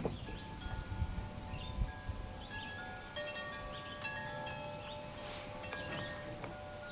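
Wind chimes ringing: several clear tones of different pitches ring out and overlap, thickest from about three seconds in.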